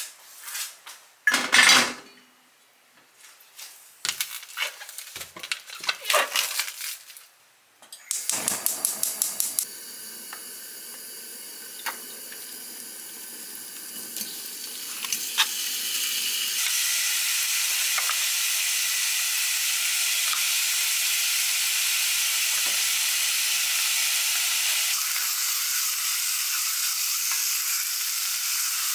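Dishes and utensils clattering and knocking. About eight seconds in comes a quick run of clicks, then food frying in a pan, its sizzle turning louder and steady about halfway through.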